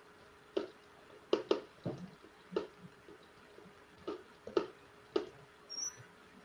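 A marker writing on a handheld answer board: about eight short scratchy strokes, irregularly spaced, over a faint steady hum.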